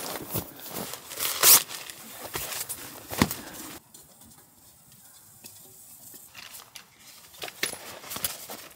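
Handling noises as a person moves about a tent: fabric rustling and knocks on sleeping mats, with one sharp knock about a second and a half in. It goes quieter from about four seconds in, then clicks and rattles near the end as a folding camp chair is set up.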